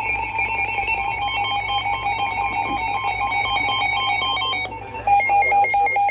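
Emergency Alert System alert tones: an electronic alert that warbles rapidly between pitches, breaks off briefly about five seconds in and comes back louder with a different warbling pattern.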